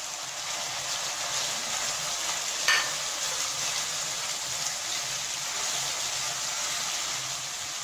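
Onion, tomato and spice masala sizzling steadily in hot oil in a wok while a spatula stirs it, with one sharp tap of the spatula against the pan a little under three seconds in.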